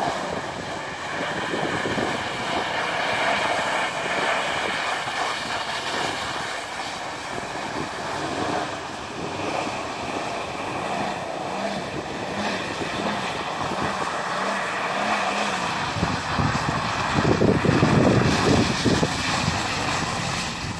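Car engine running under a steady rush of noise, its revs rising and falling in a short run of swells about two-thirds of the way through, then a louder rough stretch near the end.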